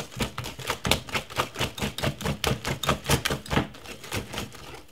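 Wire whisk beating cake batter in a glass bowl, its wires clicking rapidly against the glass at about five or six strokes a second, stopping near the end. The batter is being whisked smooth to break up lumps.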